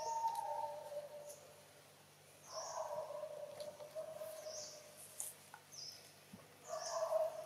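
Long, steady-pitched animal calls, three in all, each lasting a second or two, with short high chirps between them.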